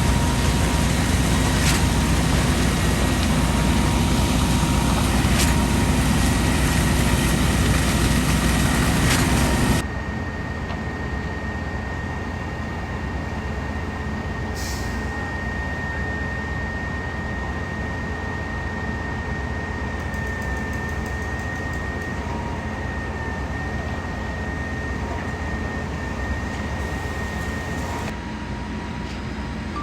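Heavy diesel engines of a concrete pump truck and ready-mix trucks running steadily, with a thin high whine over the drone. The sound drops sharply about ten seconds in and shifts again near the end.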